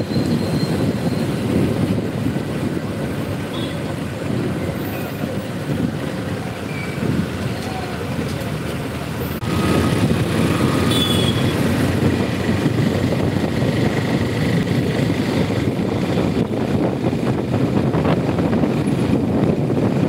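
Wind buffeting the microphone and road noise from a moving two-wheeler riding through city traffic, a steady low rumble that gets louder about halfway through.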